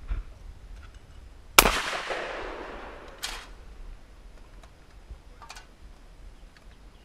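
A single shotgun shot at a clay target about a second and a half in, its report echoing and dying away over about a second and a half. A shorter, fainter crack follows about three seconds in.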